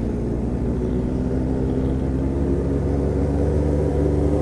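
Yamaha XJ6's inline-four engine running at steady revs while riding, heard from the rider's seat through an open, straight-pipe exhaust.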